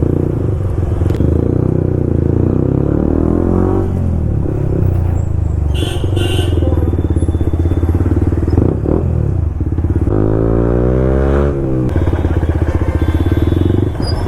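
Yamaha MT-15's single-cylinder engine through an Akrapovic full-system exhaust, running in slow traffic and rising in revs twice. A brief high-pitched tone sounds about six seconds in.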